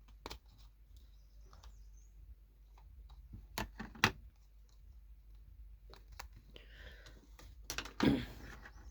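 Plastic casing of a Nokia 105 keypad phone being pried and unclipped by hand: scattered light clicks, with two sharper snaps about three and a half and four seconds in and a louder knock near the end.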